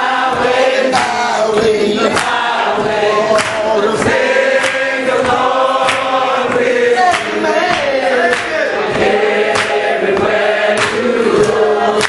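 A congregation singing a hymn together without instruments, with several voices holding long notes, and sharp knocks now and then.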